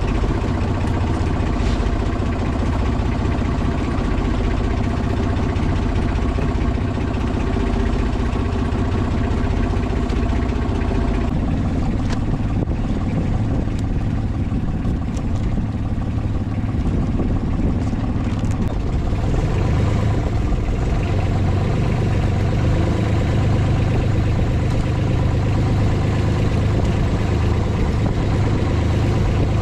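Engine of a motorized bangka running steadily under way. Its note shifts about eleven seconds in, and the low hum grows stronger from about nineteen seconds on.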